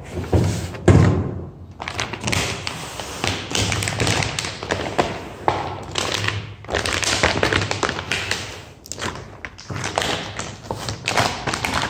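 Clear PVC paint-protection film being peeled off a car's painted hood by hand, the thin plastic crinkling as it comes away and is bunched up, with a few taps and thumps as the hand presses and handles it on the hood.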